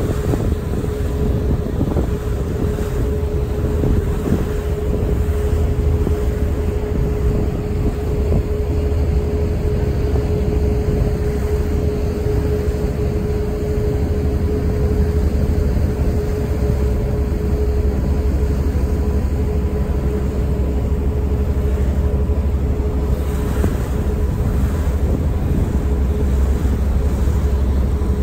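Staten Island Ferry under way: the ship's engines running with a steady low rumble and a steady hum, with wind noise on the microphone.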